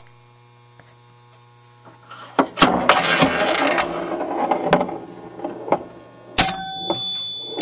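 Relays, coils and stepper units inside a Gottlieb Delta Queen electromechanical pinball machine clicking and clattering during play, after about two seconds of steady transformer hum. About six seconds in, one sharp clack is followed by a ringing tone that lingers.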